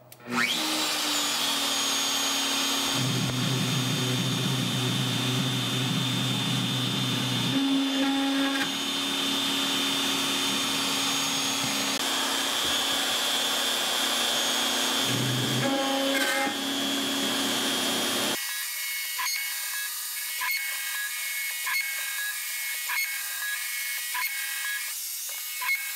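DeWalt router motor of a Shaper Origin handheld CNC router running at speed with a steady high whine, plunging to spot-drill holes in thin aluminum sheet; a lower hum comes and goes a few times as it cuts. About two-thirds of the way through, the sound turns thin, losing its low end, with a string of light clicks.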